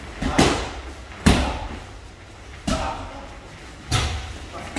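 Gloved punches landing on a trainer's focus mitts during Muay Thai pad work: five sharp slaps, a quick pair near the start and then single strikes every second or so, each ringing out briefly in a large gym hall.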